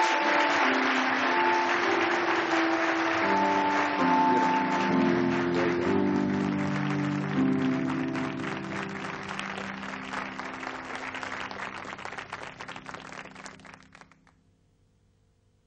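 Studio audience applauding over instrumental music with held notes; both fade and stop about fourteen seconds in.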